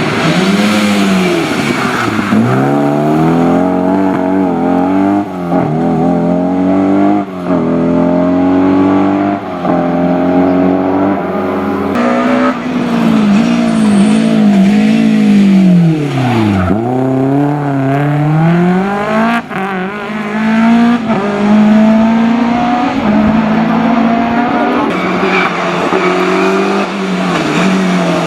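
Historic rally car engines at full throttle, revving up through the gears with a quick shift every second or two. About two-thirds of the way in the pitch drops sharply, then climbs again as the car accelerates away.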